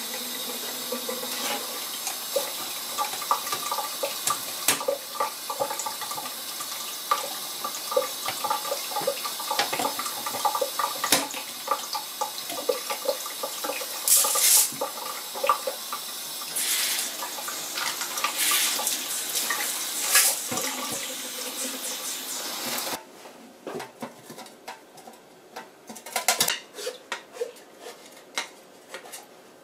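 Tap water running into a stainless steel sink as a refillable filter cartridge of granular media is rinsed and shaken under it, with scattered clicks and rattles. About 23 seconds in the water stops, and separate clinks and knocks follow as the wet media is tipped out into a bowl.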